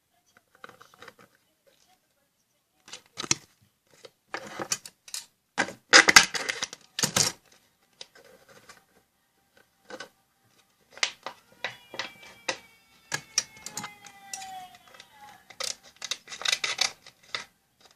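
Scissors cutting thin plastic from a sour-cream tub: irregular sharp snips and crackles with pauses in between.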